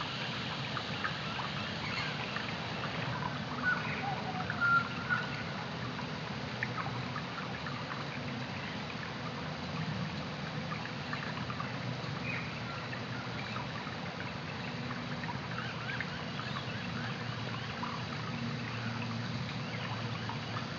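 Creek water trickling and gurgling, heard through an underwater camera, with many faint scattered clicks and a few short chirps about four to five seconds in.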